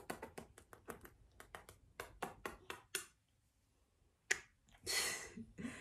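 A person making kissing noises at a puppy: a quick run of lip smacks, several a second, for about three seconds, then a short quiet, one more smack and a brief breathy puff near the end.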